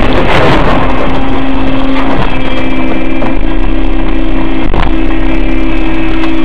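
Loud, distorted dashcam vehicle noise after a collision: the crash impact's noise dies away in the first half-second, then a dense steady noise with two held steady tones runs on.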